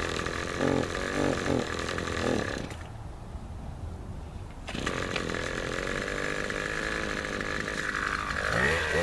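Tanaka TBC-270PN commercial brush cutter's small two-stroke engine running at idle, with a few short throttle blips about a second in and a rising rev near the end.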